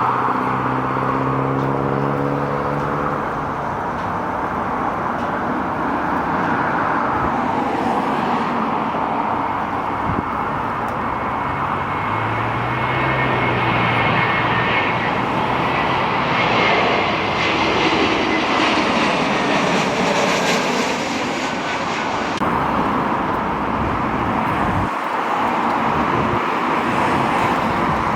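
Jet airliner engines passing, a steady loud roar. There are falling engine tones near the start and a high turbine whine that slowly drops in pitch through the middle.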